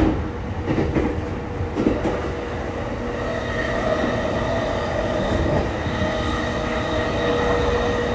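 Electric commuter train running, heard from inside the carriage: a steady rumble of wheels on the track with a couple of knocks in the first two seconds. A steady electric whine joins in about three seconds in.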